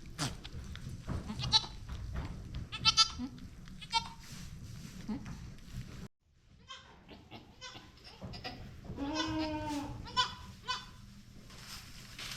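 Goats bleating in a kidding barn: several short, wavering calls, with a brief complete silence about halfway through.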